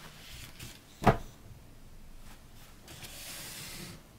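A single sharp knock about a second in, as a cake on a paper napkin is set down on a wooden tabletop, then a soft rustle of the paper napkin being handled.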